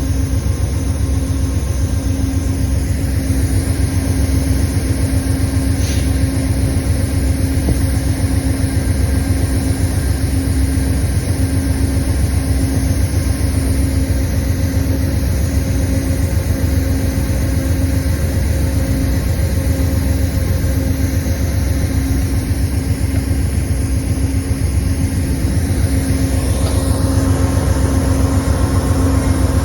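Diesel locomotive engine idling steadily, a low rumble with a constant hum; it grows slightly louder near the end.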